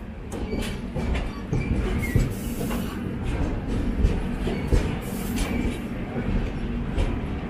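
Passenger train running, heard from inside a coach: a steady rumble with frequent clacks and rattles of the wheels over the rails. A few louder knocks come about 2, 4 and 5 seconds in.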